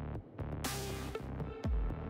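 Electronic background music with a steady beat and a deep bass drum hit about a second and a half in.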